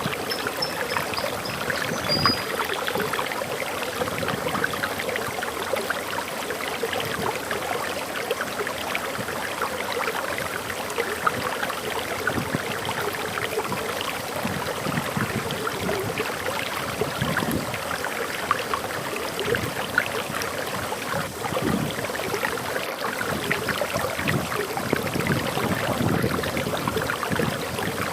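Forest waterfall: water pouring and splashing in a steady rush. A few brief high bird chirps sound in the first couple of seconds.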